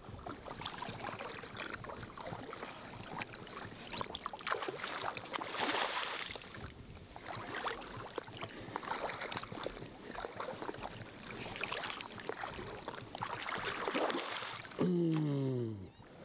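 Someone wading through shallow water, making irregular sloshing and small splashes. Near the end there is one short call that falls in pitch.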